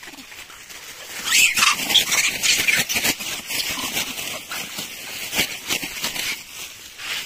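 A crowd of rhesus macaques jostling in close and giving harsh, noisy calls. It grows loud about a second in, with scuffling and clicks throughout.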